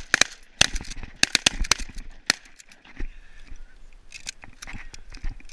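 Canada geese honking: a quick, uneven series of short, harsh calls.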